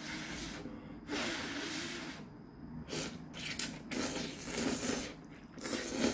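A person slurping ramen noodles off chopsticks in a series of hissing slurps, the longest lasting about a second.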